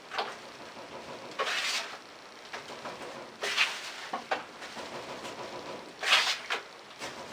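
Metal joint knife scraping and slapping through setting joint compound (plaster of Paris mixed with all-purpose mud) on a mixing board, in several quick strokes a second or two apart. The mud has started to set, so it is being mixed fast.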